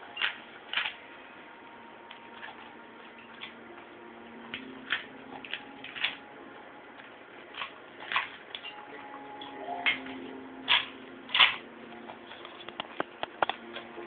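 A dog crunching pieces of poppadom: irregular short, crisp crunches, two of the loudest close together a little past the middle, then a quick run of small crackles near the end.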